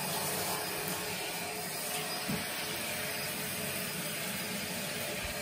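Handheld shower running: a steady hiss of spraying water as a wet cat is rinsed.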